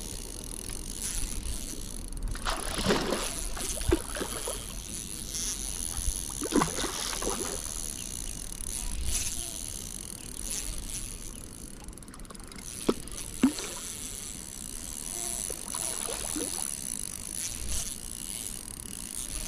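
Spinning reel being cranked as a hooked trout is reeled in, with water sloshing and splashing from the fish at the surface. Two sharp knocks come about two-thirds of the way through.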